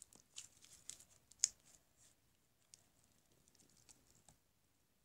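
Faint, sparse little clicks and pops of slime being poked and squeezed in the hands, denser in the first two seconds with one louder click about a second and a half in. The slime gives only weak, few bubble pops.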